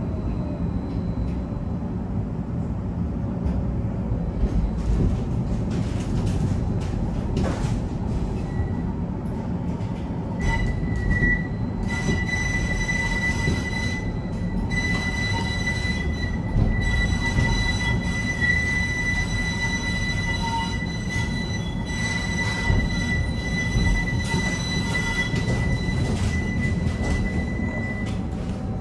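Tram in motion: a steady low rumble from the ride. About ten seconds in, a steady high-pitched squeal starts and holds unchanged in pitch until just before the end.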